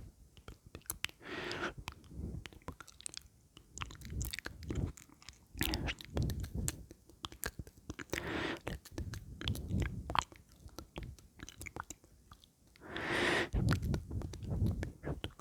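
Close-miked ASMR mouth sounds: a continuous stream of wet lip smacks and tongue clicks, with a few breathy swells in between.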